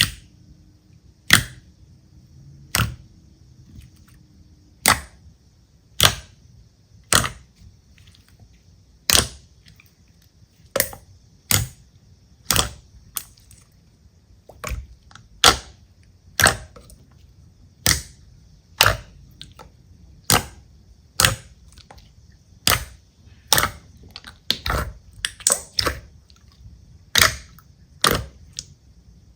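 Slime being worked by hand, giving sharp pops about once a second, a few coming closer together near the end, over a faint steady hiss.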